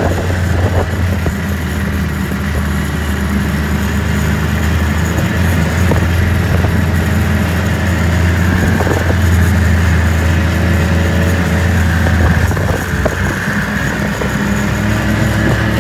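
Engine of a small off-road vehicle running steadily under way: a low, even drone that eases briefly near the end.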